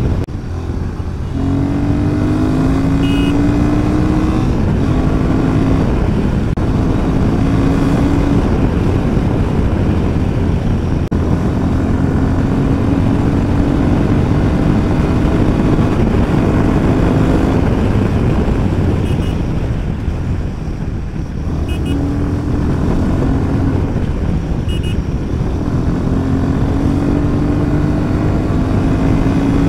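Royal Enfield Himalayan 450's single-cylinder engine pulling steadily at highway speed, its pitch slowly climbing as the bike gathers speed, with heavy wind noise on the microphone. The level dips briefly about 20 seconds in.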